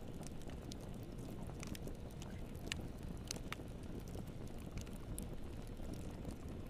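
Wood fire crackling in a fireplace: irregular sharp pops and snaps over a steady low rumble of burning flames.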